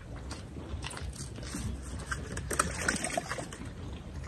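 Steady low rumble with water sloshing, and scattered short clicks and taps that come thickest a little past halfway.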